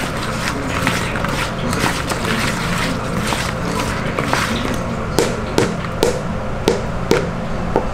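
Sauce-coated fried chicken gizzards being stirred in a plastic bowl with a plastic ladle: wet, sticky scraping and squelching, with sharp knocks of the ladle against the bowl about every half second in the second half.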